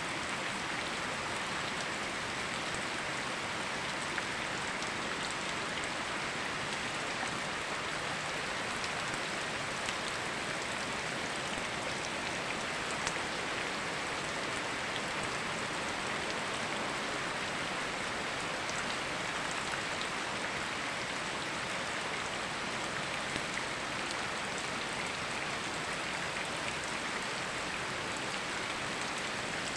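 Steady rain falling, a constant hiss with occasional faint drop ticks, mixed with running water.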